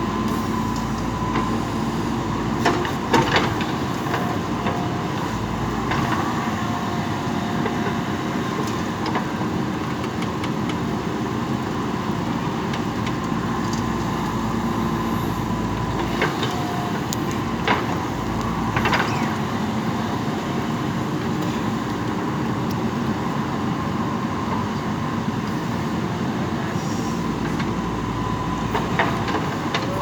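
JCB 3DX backhoe loader's diesel engine running steadily under working load, with a held high tone over it. A few sharp knocks come through, around three seconds in, twice more a little past the middle, and again near the end.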